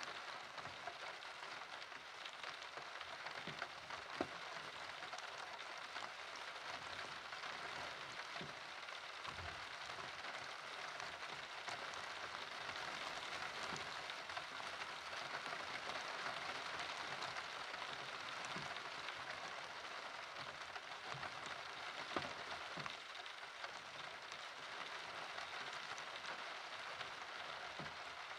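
Steady rain falling, with scattered louder drips and taps.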